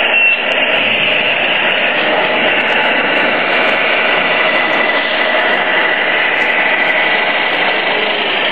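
Radio-controlled scale semi truck driving over a wooden floor: a steady mechanical whirring with a faint high whine through the middle.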